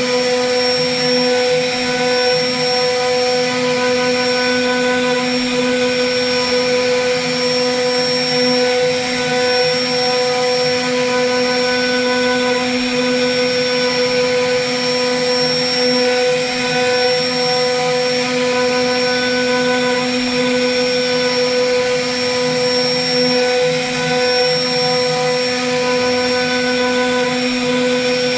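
CNC router spindle running at a constant speed with a steady whine made of several held tones, its bit cutting a relief pattern into a wooden panel, with the hiss of the cut wood beneath.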